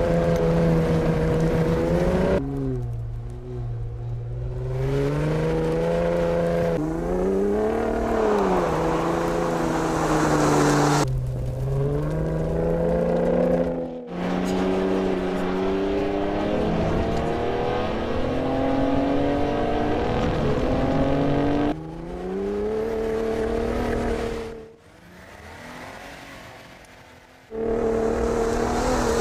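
Ford F-150 Raptor's twin-turbo V6 engine revving hard during off-road driving, its pitch repeatedly rising and falling. The sound cuts abruptly from one run to the next several times, and drops much lower for a couple of seconds near the end.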